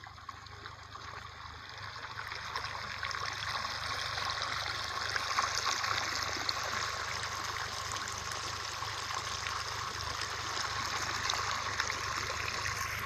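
Water gushing and splashing out of the open end of a hose onto dirt, delivered by a motorcycle-driven water pump under test. It is a steady rushing and splashing that grows louder over the first few seconds and then holds, which shows the pump is delivering a full flow.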